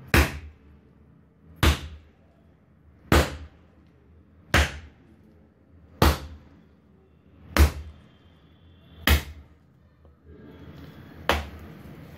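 Soft maida parotta dough, oiled with coconut oil, being beaten by hand against the work surface as it is kneaded. Eight sharp slaps come about one every second and a half, with a longer pause before the last.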